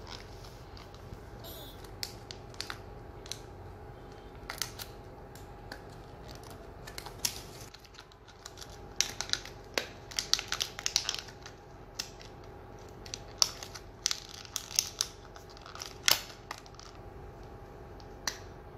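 Small toy packaging being handled and opened by hand: irregular crinkling and sharp clicks of plastic and cardboard. The clicks are thickest about nine to eleven seconds in and again from about thirteen to sixteen seconds.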